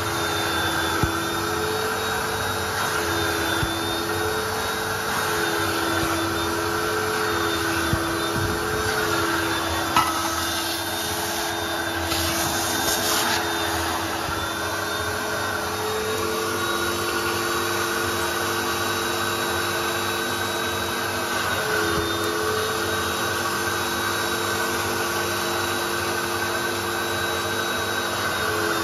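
Vacuum motors of a coin-operated carpet and upholstery extractor running steadily, its steam-and-vac wand nozzle sucking as it is pulled across a carpet floor mat. There is a short burst of hiss near the middle.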